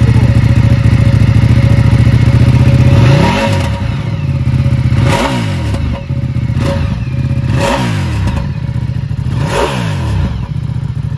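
Ducati Diavel 1260 Lamborghini's V-twin on its stock exhaust, idling steadily and then revved in four quick throttle blips about two seconds apart. Each blip rises and falls back to idle, with a little crackle.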